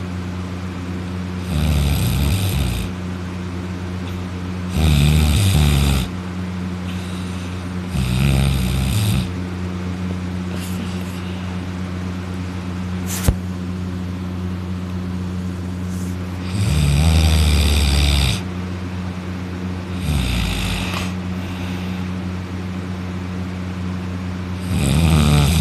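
A man snoring loudly in deep sleep, lying on his back with his mouth open: six rasping snores a few seconds apart, with a longer pause in the middle, over a steady low hum. A single sharp click near the middle.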